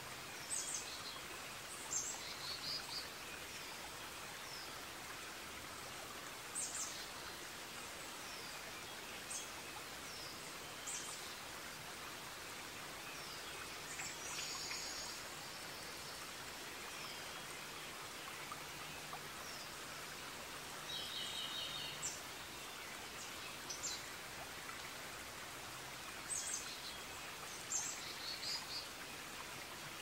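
Forest ambience: a steady hiss of running water with songbirds chirping every few seconds, short high chirps and a few brief trills.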